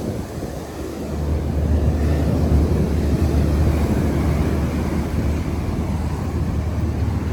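A steady low rumble that grows louder about a second in, under a general outdoor noise haze.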